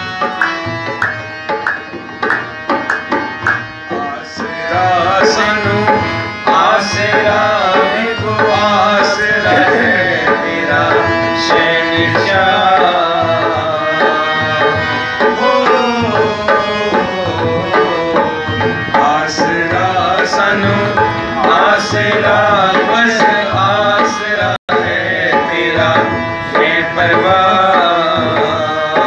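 Harmonium and dholak drum playing a devotional shabad, the harmonium holding steady chords over the drum's regular beat. From about five seconds in, a voice sings a wavering, ornamented melody over them.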